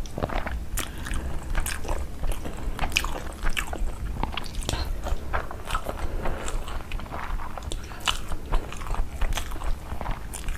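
A person chewing and biting food close to the microphone, with many irregular small clicks and crunches.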